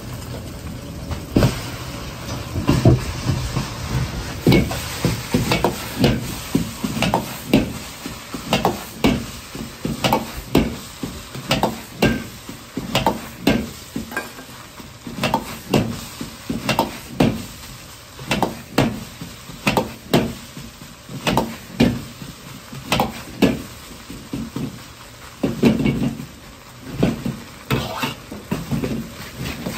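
A metal ladle repeatedly striking and scraping a wok, roughly one to two hits a second, as rice and egg are stir-fried. A steady sizzle runs underneath.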